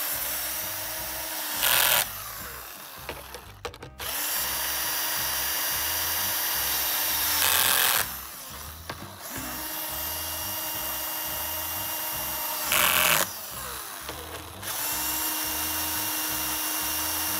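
Cordless drill-driver driving screws to mount the rebuilt speaker back into its cabinet: four runs of a steady motor whine, each ending in a short, louder burst. The last run carries on past the end.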